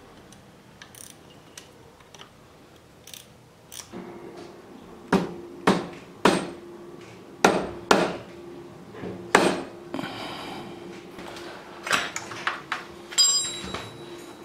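A hammer knocking on the cylinder of a Yamaha TDR250's two-stroke twin engine, working it loose from the crankcase during top-end disassembly. About ten sharp knocks, irregularly spaced, begin about four seconds in after a few light tool clicks.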